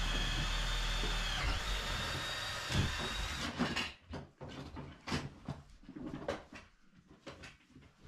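A power tool's electric motor running steadily with a high whine that dips in pitch twice as it takes load, then stops a little before halfway. Scattered sharp knocks and clicks of tool and material handling follow.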